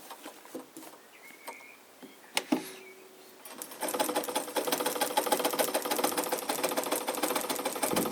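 Necchi sewing machine: a few light clicks, then from about four seconds in it starts running, a rapid, even clatter of stitching that carries on steadily. The machine runs quiet.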